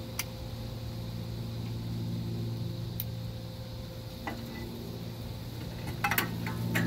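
Dodge Caravan rear drum-brake shoes and spring hardware clinking against the steel backing plate as they are worked off by hand. A few sharp metal clicks, then a quick cluster of clicks near the end, over a low steady hum.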